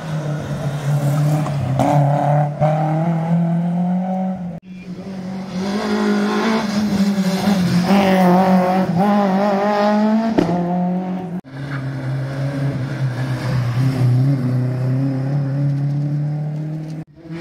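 Rally cars at speed, engines revving with the pitch rising and falling, in several short clips, each breaking off abruptly.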